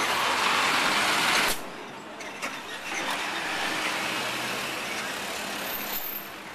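City street traffic heard from a moving rickshaw: a loud rushing noise for about a second and a half that cuts off abruptly, then steadier, quieter traffic noise.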